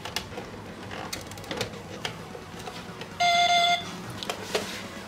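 A single electronic beep of about half a second from the electronic piggy-bank safe's small speaker, sounding about three seconds in, amid light clicks of its plastic case and parts being handled.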